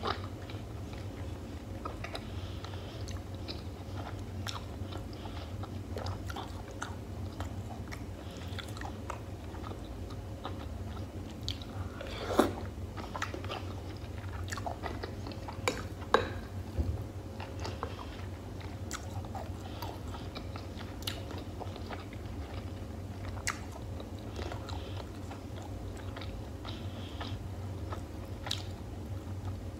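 Close-miked chewing and wet mouth sounds of a person eating soft beef-and-tomato stew, with many small clicks and a few louder sharp ones about twelve and sixteen seconds in, over a steady low hum.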